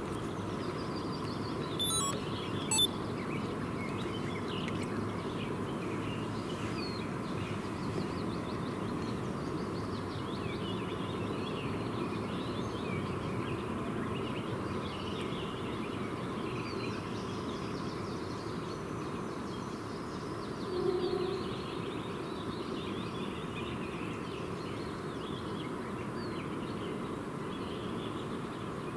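Open-water ambience: many faint bird chirps over a steady low background hum. Two short, sharp high clicks about two seconds in, and a brief low call past the middle.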